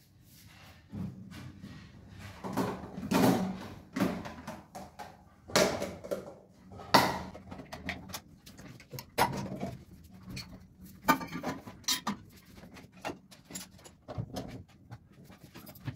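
Irregular knocks, clicks and rustles, a dozen or more, uneven in spacing and loudness. The loudest come about three and seven seconds in.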